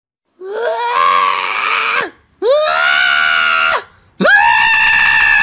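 A cat giving three long, loud yowls with short gaps between them. Each yowl rises in pitch at the start, holds, and falls away at the end.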